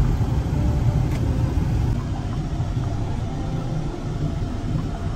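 Steady low rumble of a car's engine and tyres heard from inside the moving car's cabin, dropping a little about two seconds in.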